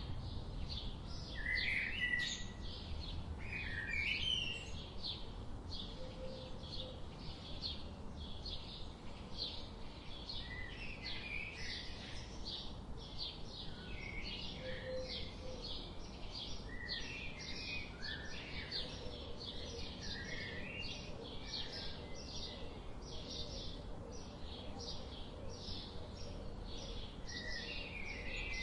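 Several birds chirping together: a steady run of short high chirps at about two a second, with lower chirping calls scattered among them over a faint low background rumble.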